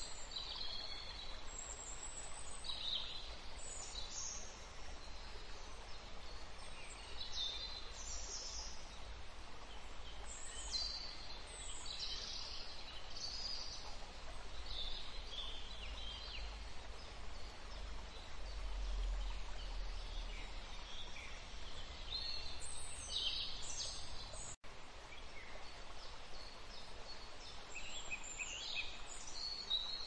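An aviary of canaries and Lady Gouldian finches chirping and calling in many short, high-pitched notes, scattered all through, over a steady low rumble.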